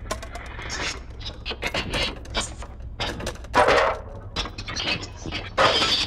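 Electroacoustic tape music: a dense, irregular texture of clicks, clatters and short noisy bursts like breaking glass, over a steady low hum. Two louder bursts stand out, one a little past halfway and one near the end.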